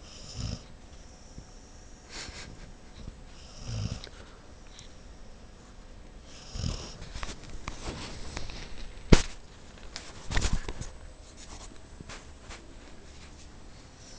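A sleeping pit bull snoring, with a low snoring breath every few seconds, some carrying a high whistle. A single sharp click about nine seconds in is the loudest sound.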